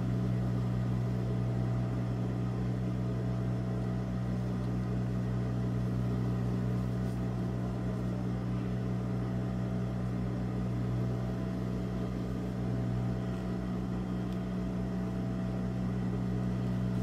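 Steady low electric hum of an industrial sewing machine's motor running idle, the needle not stitching.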